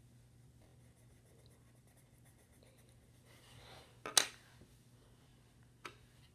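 Faint scratching of a colored pencil on paper, then a single sharp knock about four seconds in and a lighter click near the end.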